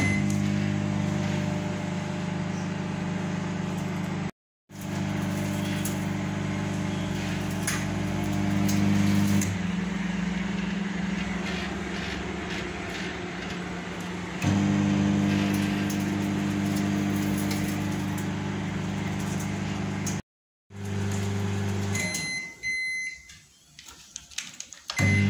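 Godrej microwave oven running: a steady low electrical hum that thins about nine seconds in and comes back full about five seconds later. Near the end the hum stops and the oven gives a couple of short high beeps as its keypad is pressed.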